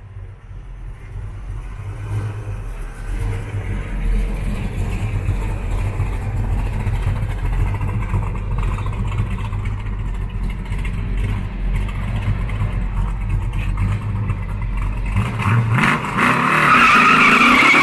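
1971 Dodge Charger's engine running as the car rolls slowly past and away, a steady low exhaust rumble that grows louder over the first few seconds. In the last second or two a louder, brighter sound takes over.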